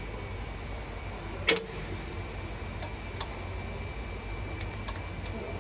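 A single sharp metallic clink with a short ring about a second and a half in, then a few faint, irregular light ticks: hand tools and hardware knocking against metal under the car at the transmission pan. A steady low hum sits underneath throughout.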